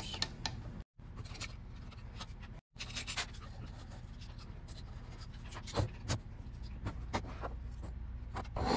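A screwdriver backs small steel screws out of a billet aluminium transmission cover: light scrapes and scattered small clicks as the screws turn and are set down on the table. The sound breaks off twice to dead silence early on.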